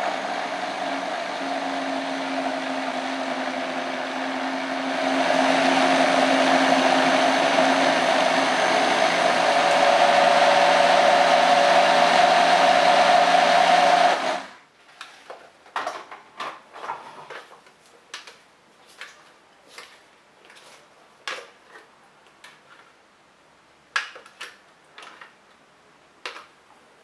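Philips blender running, churning thick acai and banana purée, growing louder about five seconds in and again about ten seconds in, then stopping suddenly about fourteen seconds in. After that come light, scattered clicks and knocks as the jar is handled and the purée is scraped out with a spatula.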